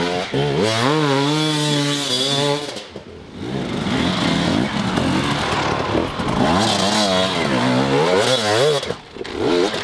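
Dirt bike engine revving up and down under hard throttle, with the pitch repeatedly rising and falling as the rider works the bike over rough ground. The revs drop away briefly about three seconds in and again near the end.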